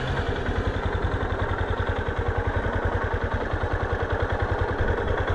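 Yamaha Ténéré 250's single-cylinder four-stroke engine idling steadily, an even, fast pulse with no revving.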